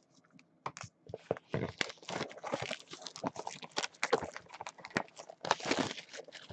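Clear plastic shrink-wrap being torn and peeled off a sealed hobby box of trading cards: irregular crackling and crinkling of the film, starting about a second in.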